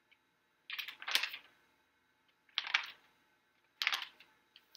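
Paper pages of a hardcover picture book being flipped by hand: three short papery rustles, the first about a second in and the last near the end.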